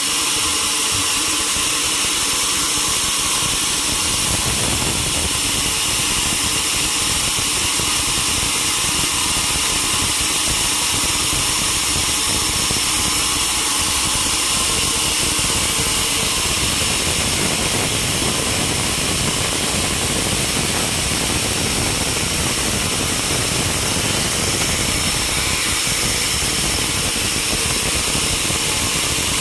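Sawmill machinery running steadily, a constant mechanical noise with a high steady whine over it, as from a sawmill's saw and its motor at work on mahogany logs.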